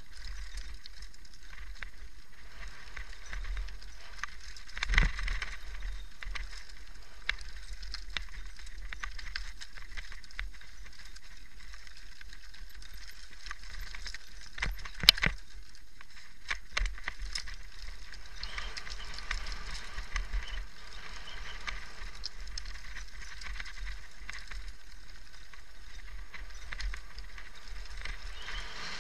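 Mountain bike rattling over a rocky dirt trail on a descent: a steady low rumble with scattered sharp knocks, the two loudest about 5 and 15 seconds in.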